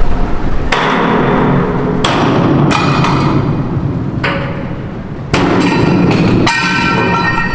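Hammer blows on the metal support blocks under a ship's hull, knocking the supports loose for the launch: about eight sharp strikes at uneven intervals, each ringing briefly.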